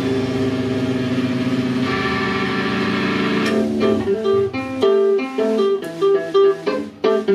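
Live rock band playing: a chord and cymbals ring out, then about three and a half seconds in the wash stops and an electric guitar picks out a run of short single notes.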